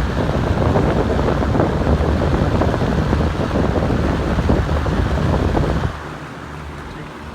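Toastmaster box fan running on high, its airflow blowing on the microphone as loud wind noise. About six seconds in the wind noise cuts off suddenly, leaving the fan's steady hum.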